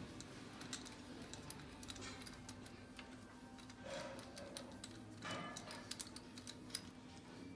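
Faint, irregular clicking of a ratchet wrench and small metal clinks as the cylinder head of an M9R 2.0 diesel engine is worked on between compression readings, over a steady low hum.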